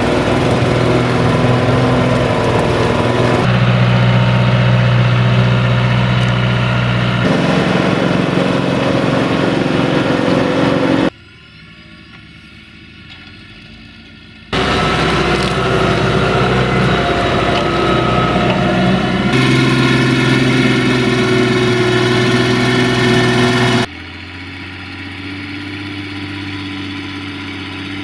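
Tractor diesel engines of a John Deere and a Fiat 1380 DT running under load while pulling ploughs through wet, heavy soil. The engine note changes abruptly several times between shots, and the sound drops to a quieter, more distant level for a few seconds about eleven seconds in and again near the end.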